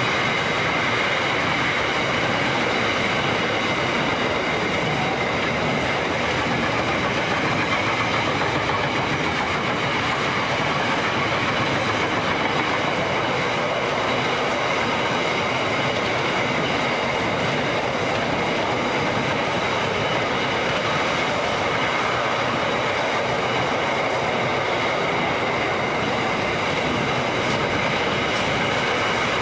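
Container flat wagons of a long freight train rolling past: a steady, loud rumble and rattle of steel wheels on rail, with a thin high whine running through it.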